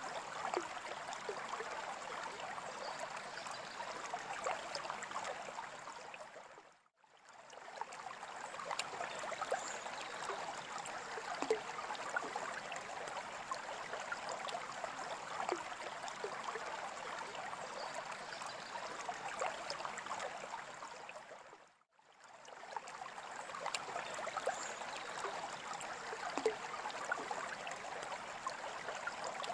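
Freshwater aquarium water trickling and gurgling steadily, with small drips and bubble pops, fading out and back in twice, about a quarter of the way in and again about three quarters in.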